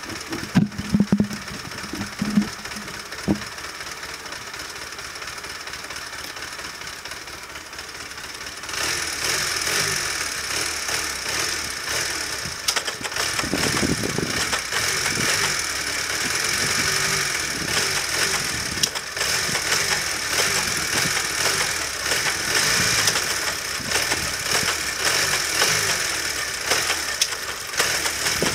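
Honda CD125T's small parallel-twin engine running at idle with a mechanical rattle. It gets louder about nine seconds in.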